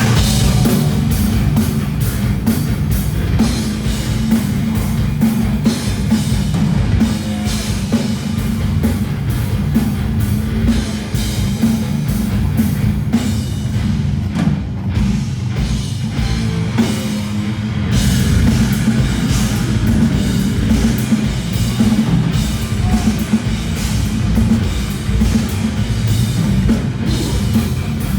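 Death metal band playing live and loud: heavily distorted, low-tuned guitar and bass riffing over fast drumming. The deepest bass thins out for a few seconds in the middle, then the full low end comes back in.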